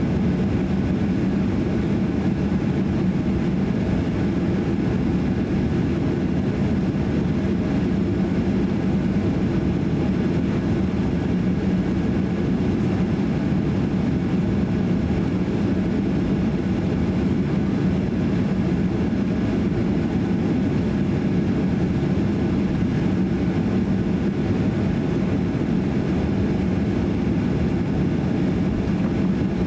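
Cabin noise of a Boeing 737-800 taxiing, its CFM56-7B engines at low taxi power: a steady low drone with no change in level.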